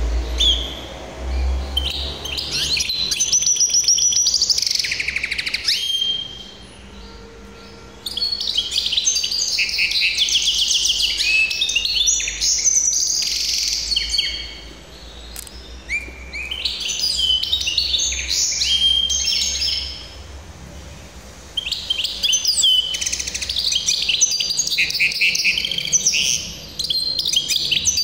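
Caged hybrid finch (a mule) singing: four long phrases of fast, high twittering and trills, broken by pauses of one to two seconds.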